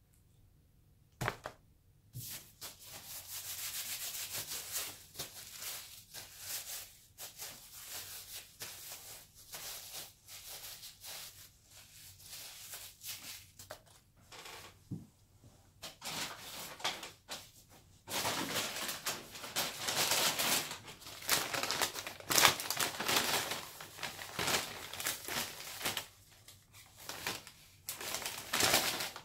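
Fast-food paper packaging rustling and crinkling as it is handled, in irregular runs that grow louder in the last third, with a single sharp click about a second in.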